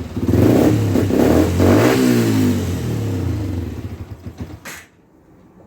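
Freshly rebuilt Yamaha 125 cc engine revved twice with the throttle, then dropping back and shutting off about five seconds in, with a short click just before it stops.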